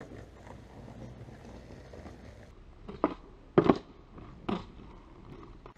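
Skateboard wheels rolling over rough concrete with a low rumble, broken by sharp clacks of the board about three seconds in, again about half a second later (the loudest), and once more near four and a half seconds.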